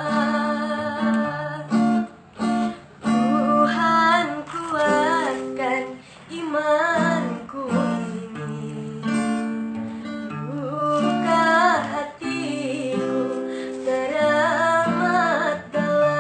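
A woman singing over strummed acoustic guitar, her melody line bending and wavering in pitch.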